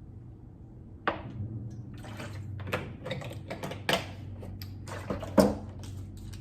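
Close-up eating sounds: a run of sharp, wet clicks and smacks, several a second, starting about a second in, over a steady low hum.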